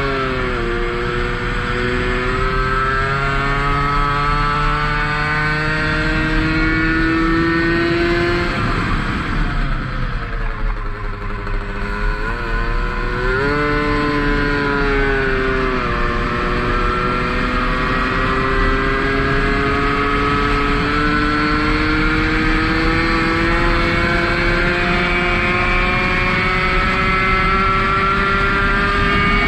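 Tomos 50 cc two-stroke racing moped engine at full race pace. The revs climb, dip sharply about ten seconds in, then climb steadily through the last dozen seconds as speed builds to about 80 km/h.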